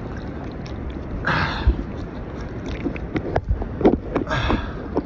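Water splashing and sloshing around a swimmer, picked up close on a phone in a waterproof case. There are two loud breaths, one about a second and a half in and one just past four seconds.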